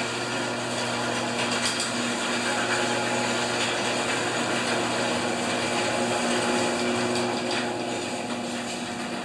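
Two electric overhead garage door openers running together as the sectional doors roll up, a steady motor hum that eases off slightly near the end as the doors reach the top.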